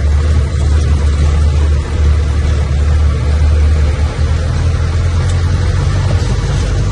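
Old Land Rover truck's engine running while driving, heard from the cab as a loud, steady, deep drone that eases a little about four seconds in.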